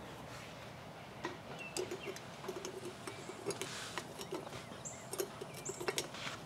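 Faint, scattered light metallic clicks and ticks as a new brake pad and its spring-steel hardware clips are handled and pressed into the caliper bracket.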